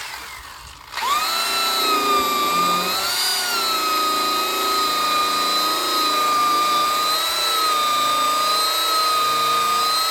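Electric power tool spinning a buffing pad to cut an oxidized plastic headlight lens with polishing compound. It starts about a second in and runs as a steady high whine, its pitch wavering slightly as the pad is pressed against the lens.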